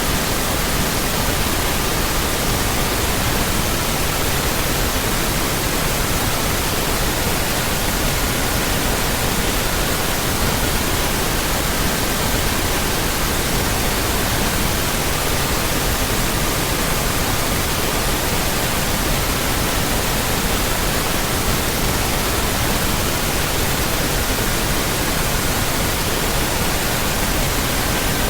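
Steady pink noise hissing evenly, with faint pure tones in the 1200 to 1555 Hz range laid under it. Each tone holds for several seconds before another takes over.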